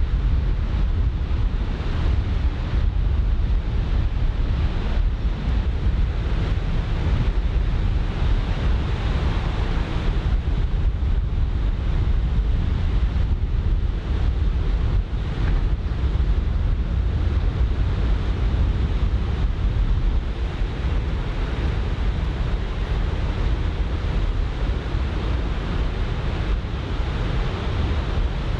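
Ocean surf washing onto a beach, with onshore wind buffeting the microphone in a steady low rumble.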